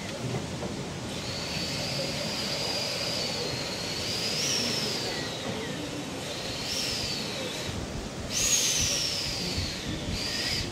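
Narrow-gauge railway carriage wheels squealing against the rails on a curve: a shrill, high-pitched tone that rises and falls over and over above the steady rumble of the moving train. The squeal cuts out briefly near eight seconds in and returns at its loudest.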